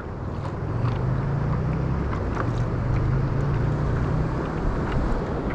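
Wind and choppy water noise on an open-water kayak, under a steady low drone that fades near the end.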